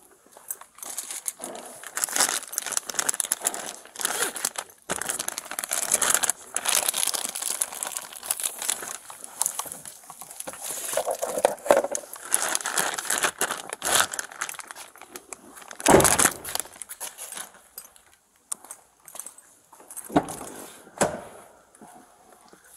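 Irregular rustling and crinkling of clothing and gear rubbing close to a body-worn camera's microphone, with some light jangling, and a louder knock about two-thirds of the way through.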